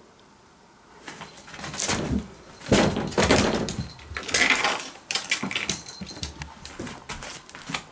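Irregular scuffling, knocks and rattles on a wooden floor and doors, as a cat hunts a live mouse along a hallway, starting about a second in.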